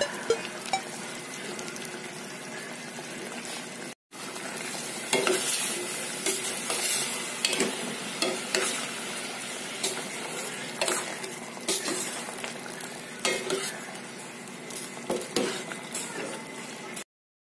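A metal utensil stirring in a stainless steel pot of simmering squash and eggplant, clinking and scraping against the pot's side again and again, over the steady hiss of the bubbling broth. The first few seconds hold only the hiss, before the stirring starts.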